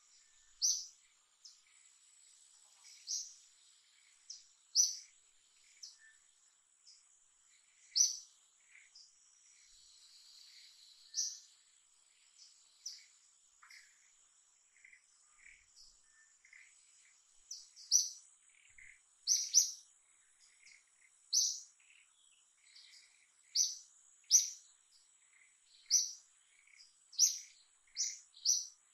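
Short, sharp bird chirps repeated at irregular intervals, coming more often in the second half, over a faint, steady, high-pitched insect drone.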